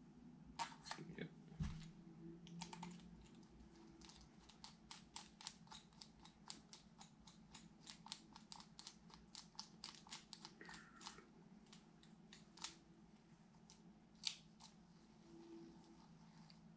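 Faint clicking and ticking of a Daiwa Strikeforce 2500B spinning reel's small plastic and metal parts being handled and fitted together during reassembly. A run of quick, even ticks comes from about four to eleven seconds in, with a couple of louder single clicks after it.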